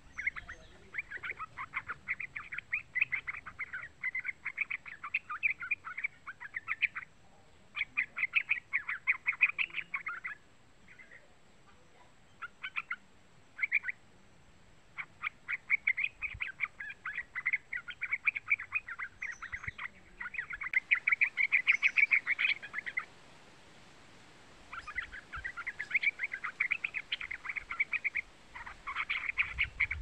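Young yellow-vented bulbul (trucukan) singing: long runs of quick, chattering notes in phrases of several seconds, broken by short pauses and a few brief snatches.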